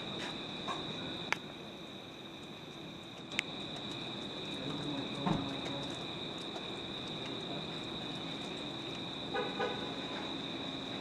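Crickets chirping steadily, with a few sharp clicks, a dull knock about five seconds in and a short rattle near the end as a raccoon rummages in a trash bin.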